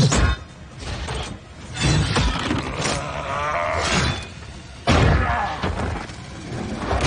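Action-film sound effects of giant metal robots fighting: several heavy crashing, shattering impacts a couple of seconds apart, with debris breaking between them.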